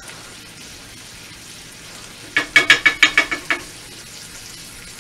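Ham steak sizzling in butter in a stainless skillet. About halfway through, a quick run of about eight ringing clinks as a spoon knocks against a pan.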